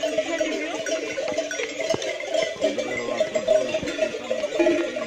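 A flock of sheep and goats on the move, their many bells clanking and ringing continuously, with some bleating.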